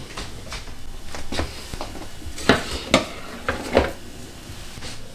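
Glass jars of vegetables handled and set into a plastic refrigerator door shelf: light knocks and clinks, the sharpest three about two and a half, three and nearly four seconds in.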